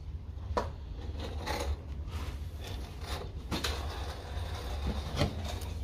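Fingers handling fishing line and a hook while tying a knot: scattered light clicks and rustles, about four in all, over a steady low rumble.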